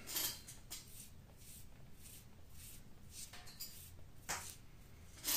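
Faint, brief rustles of a faux-suede cord lace and a leather pouch being handled on a wooden table, a few soft scrapes spread through a quiet room.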